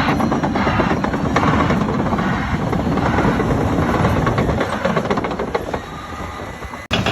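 A heavy earthmoving machine's diesel engine running under load with rapid clattering, easing down after about five seconds, then an abrupt cut to another loud engine just before the end.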